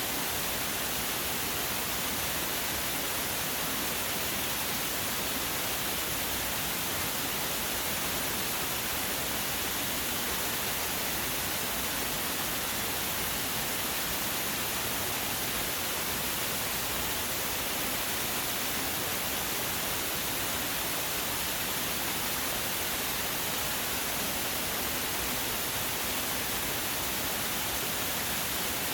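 Waterfall pouring steadily: an even hiss of rushing water that holds unchanged throughout.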